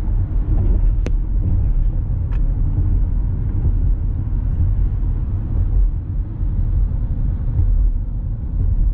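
Steady low road rumble of a car driving, tyre and engine noise heard from inside the cabin, with a brief click about a second in.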